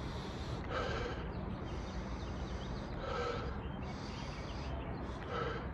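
A man sniffing an unlit cigar held under his nose, taking in its pre-light aroma: three short sniffs a little over two seconds apart, over a steady faint outdoor background hum.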